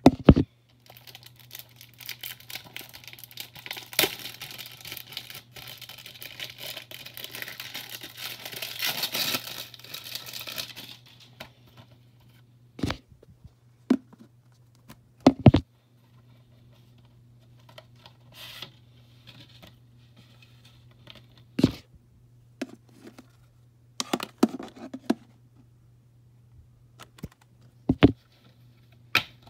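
Plastic shrink wrap being torn and crinkled off a Blu-ray case for about ten seconds, then scattered sharp clicks and knocks as the plastic case is handled, over a steady low hum.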